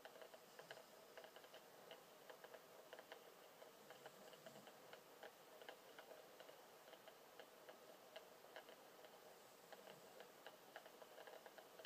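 Faint, quick, irregular popping and crackling of distant fireworks, several small reports a second, over a faint steady hum.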